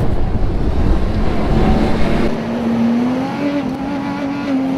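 1996 Toyota Tacoma pickup's engine running as the truck drives through snow, under a heavy low rumble for the first two seconds. The engine then settles into a steady drone that rises a little in pitch about three seconds in.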